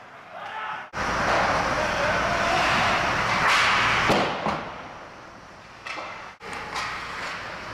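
Ice hockey game sound from spliced highlight clips: a steady rush of rink noise that starts abruptly about a second in and eases off after about four seconds, then cuts out sharply at about six and a half seconds before quieter rink noise resumes.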